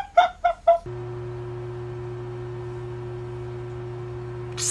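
Three short high-pitched vocal bursts, then about a second in a steady hum with one held tone sets in and runs on without change.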